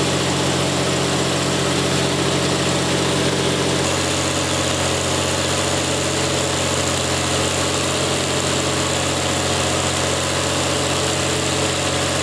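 Natural-gas-converted Cummins KTA38 V12 generator engine, with twin turbos and spark ignition, running steadily. The tone shifts slightly about four seconds in, when a high whine comes in.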